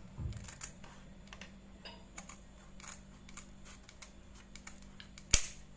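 Kitchen scissors snipping through a whole fish's tail fin: a run of small crisp clicks as the blades work through the fin, then one sharp, louder snap near the end.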